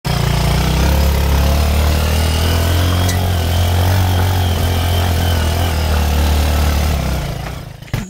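An engine running steadily with a low, even rumble, fading away near the end.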